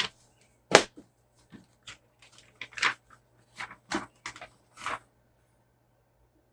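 Paper instruction sheets being handled and turned over: a string of short crinkles and rustles over the first five seconds, then quiet.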